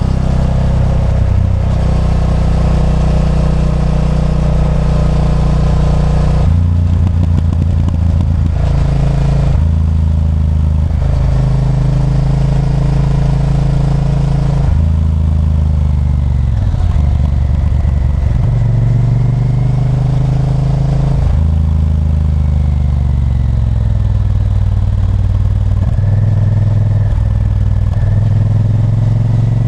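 Honda Varadero 1000's V-twin engine running under way. Its note rises and drops several times with throttle and gear changes, including a roll-off and pick-up partway through.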